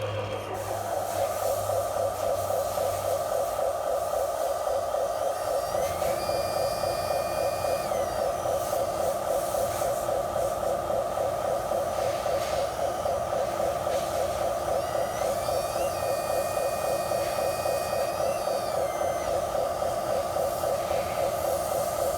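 Hydraulic pump motor of a radio-controlled excavator running with a steady whir. Twice a higher whine rises in, holds for two to three seconds and drops back.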